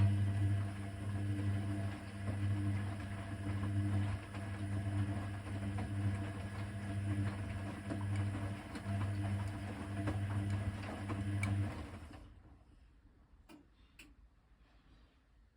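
Hoover VHD 812 washing machine running with a steady low hum that cuts in suddenly and stops about twelve seconds in, followed by two faint clicks.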